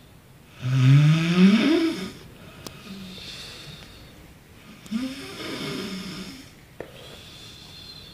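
A sleeping man snoring: a loud snore that rises in pitch about half a second in, soft breathing, then a second, weaker snore about five seconds in.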